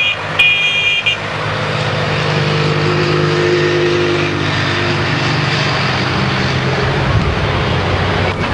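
An engine running steadily and fading out near the end, after two short high-pitched tones at the start.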